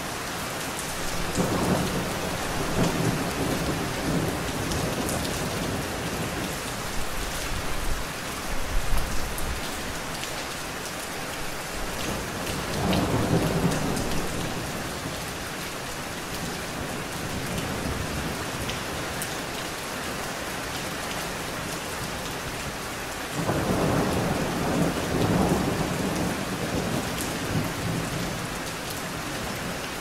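Steady rain splashing onto a wet surface, with thunder rolling three times: about a second and a half in, around thirteen seconds, and again from about twenty-three seconds, each roll lasting a few seconds.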